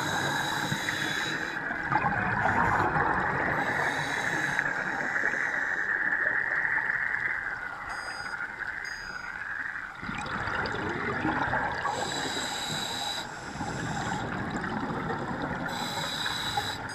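Scuba divers' regulators heard underwater: a bubbling exhalation about every four seconds, each with a faint high whistle, over a steady muffled rush of water.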